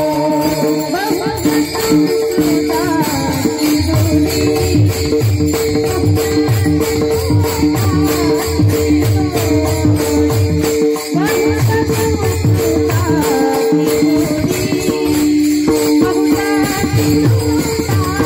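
Varkari bhajan music: a harmonium holds a steady drone while a pakhawaj barrel drum beats out the rhythm and a group of brass hand cymbals (taal) clash in an even, continuous pulse. Singing voices rise over the instruments at times.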